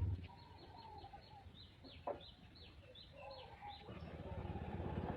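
A bird chirping over and over, short falling calls at about two or three a second, with a single click midway. A steady engine hum cuts off at the start and builds back up near the end.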